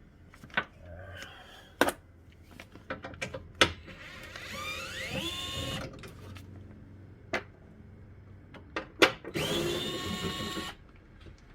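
A small electric motor whines up to speed and holds for a second or two, about four and a half seconds in, then runs again briefly near the end. Scattered clicks and knocks of tools and parts are heard around it.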